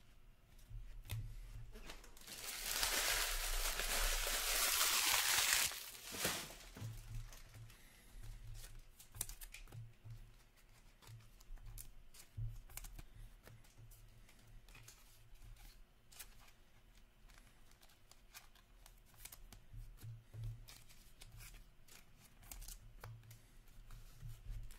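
A trading card pack's wrapper being torn open and crinkled for about four seconds, starting about two seconds in. Then cards are handled and flicked through, with soft light clicks.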